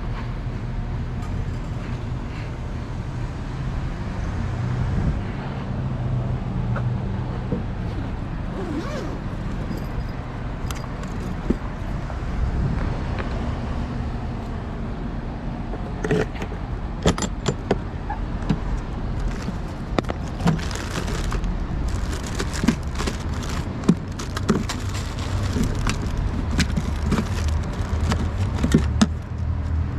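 Small metallic clicks and rattles of hand tools and cable being handled, growing frequent about halfway through, over a steady low rumble of traffic.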